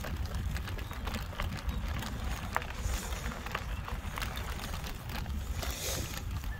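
Mountain bike rolling over bumpy grass: a steady low wind rumble on the handlebar-mounted phone's microphone, with frequent small rattles and clicks from the bike. The rider's heavy breath comes in soft puffs about every three seconds.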